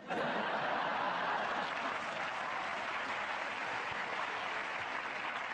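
Studio audience applauding, breaking out suddenly in response to a joke and keeping up a steady clatter of clapping.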